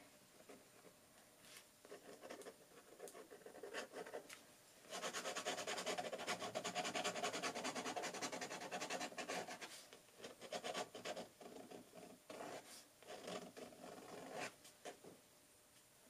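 Fountain pen nib scratching across watercolor paper in short drawing strokes. About five seconds in comes a dense run of quick repeated strokes lasting several seconds, then scattered strokes again.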